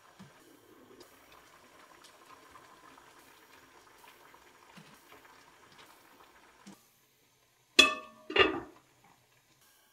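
A stainless pan of braised beef short ribs simmering faintly on the stove. About eight seconds in, after a short silence, come two loud ringing clinks about half a second apart.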